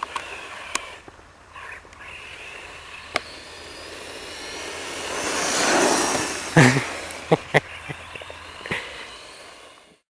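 Radio-controlled monster truck running, its motor whine swelling as it passes close about six seconds in and then fading. Several sharp knocks follow, the first the loudest, and the sound cuts off just before the end.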